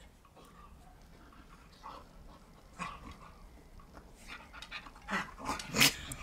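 Keeshond dogs play-wrestling: panting and short dog noises, sparse at first, then closer together and louder in the last two seconds, with the loudest just before the end.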